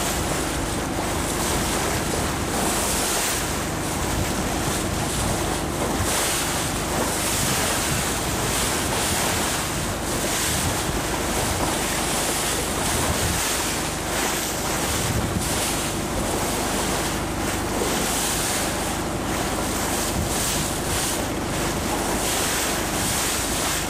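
Wind buffeting the microphone over the rush of water past a moving riverboat on a fast current, with a low hum underneath. The noise is loud and even, with no breaks.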